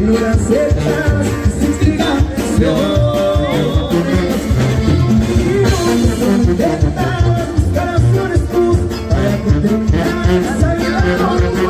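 A live band playing amplified dance music with a singer over a steady beat.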